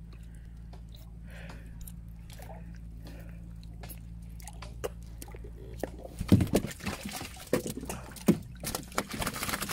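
River water sloshing and splashing around a person moving chest-deep through it, in irregular loud splashes from about six seconds in. Before that, only a steady low hum with faint small clicks.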